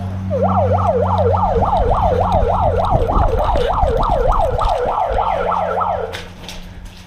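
Electronic siren wailing in a fast rising-and-falling yelp, about four sweeps a second, for about six seconds before cutting off: the signal that starts the airsoft game.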